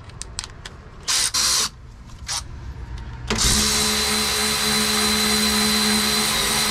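Cordless power tool starting a little over three seconds in and running steadily at one speed with a steady whine, backing out the loosened 6 mm Allen caliper bolts on a van's rear brake. A couple of short, sharp noises come before it.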